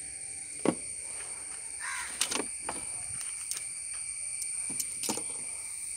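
Birds cawing in the open air over a steady high-pitched insect buzz, with a few sharp clicks and knocks as the fishing rod is handled.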